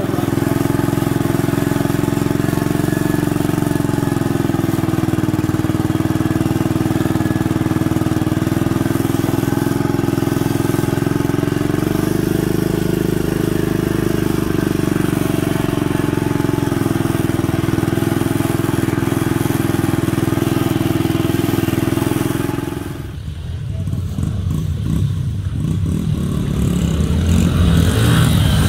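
Small garden tractor engine running steadily at an even speed while the tractor is driven across grass. About 23 seconds in it gives way to small dirt-bike engines that grow louder as the bikes come up a trail.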